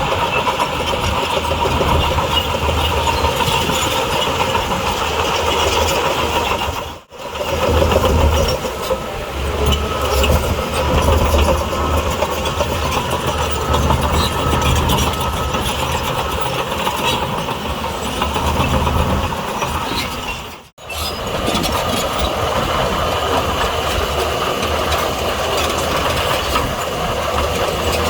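Heavy diesel earthmoving machinery running steadily under load, with two brief breaks where the sound cuts out, about seven seconds in and again near three-quarters of the way through.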